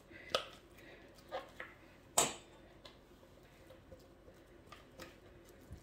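Scattered light knocks and taps of a spatula and hands working minced chicken out of a plastic food processor bowl and around its blade, with one sharper knock about two seconds in.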